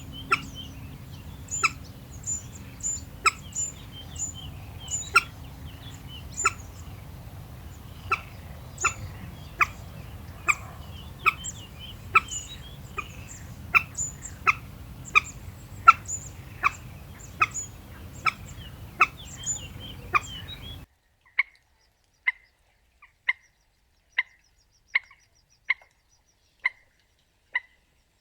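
Common moorhen giving short, sharp calls, repeated about once or twice a second. About 21 s in, the background noise cuts out and the calls continue against silence, as another recording begins.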